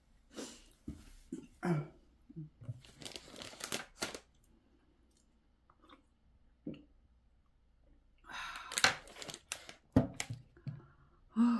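Rustling of a paper tissue held to the nose, in short bursts over the first few seconds, then, after a quiet spell, crinkling of a plastic instant-noodle packet being handled near the end.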